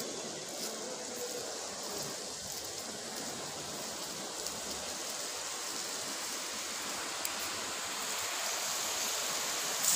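A steady hiss of outdoor background noise with no distinct events, rising slightly near the end.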